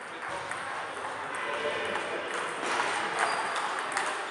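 Table tennis balls clicking off paddles and tables, several rallies overlapping, over a background hubbub of voices.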